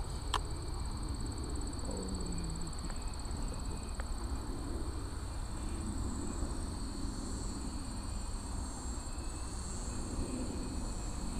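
Insects trilling steadily in a high, finely pulsing chorus, over a low rumble of outdoor noise, with one short click near the start.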